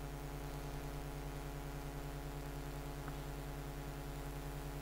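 Faint, steady electrical hum and buzz with a fast, even flutter of about ten pulses a second.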